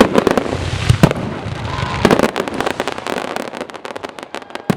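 Fireworks display: heavy booming shell bursts in the first two seconds, then a dense run of rapid crackling pops.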